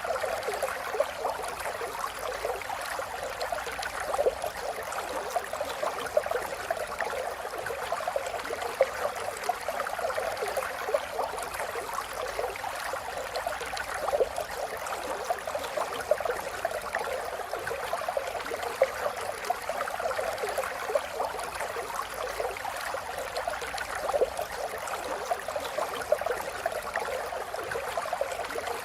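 River water flowing: a steady, continuous rush of babbling, gurgling water, light in tone with no deep rumble.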